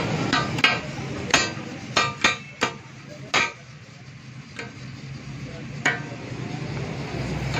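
A flat steel spatula knocking and scraping against a large steel tawa griddle: a string of sharp metallic clacks at uneven intervals, over a steady low background din.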